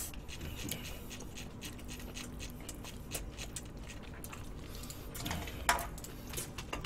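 Mukbang eating sounds: chewing, with many small scattered clicks of chopsticks against dishes, and one louder short noise about five and a half seconds in.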